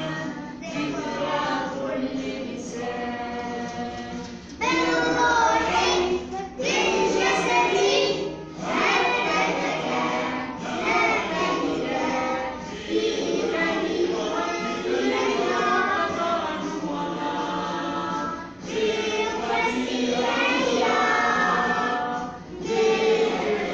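A class of young children singing a national anthem together, phrase after phrase, with short breaks for breath between lines.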